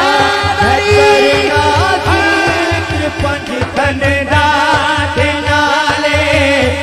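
A man singing a naat, a devotional poem, through a microphone in drawn-out notes that bend up and down, over a steady low beat.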